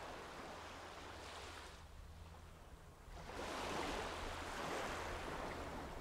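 Palms slick with cleansing oil rubbing together: a soft swishing, once briefly about a second in and then longer and louder from about three seconds in.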